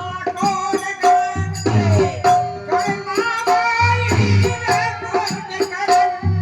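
Folk music: a melody with sliding notes over rattling hand percussion keeping a steady, even beat.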